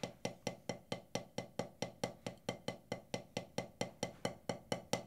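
Wooden drumstick tapping a drum practice pad in an even, steady run of about five strokes a second, the stick bounced by the pinky alone as a finger-strengthening exercise.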